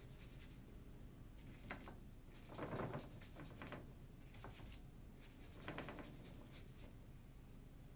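Watercolour brush stroking across paper as it lays down a dark wash: a few soft, scratchy strokes, the loudest about three seconds in.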